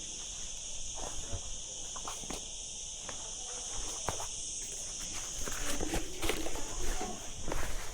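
Footsteps and the crackle and rustle of twigs and leaves being handled, growing busier and louder about five seconds in. Under them runs a steady high-pitched drone.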